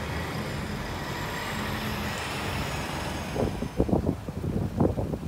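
Steady road-traffic rush with a faint engine hum. About three seconds in it gives way to strong, gusty wind buffeting the phone's microphone in irregular thumps.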